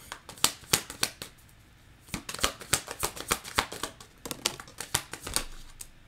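Tarot cards being shuffled by hand: a run of crisp, irregular clicks and slaps, several a second, with a brief pause about a second and a half in.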